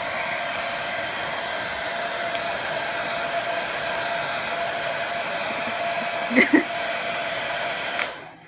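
Hair dryer blowing, a steady rush of air with a constant motor whine. Two short sounds about six and a half seconds in, then a click near the end and the dryer stops.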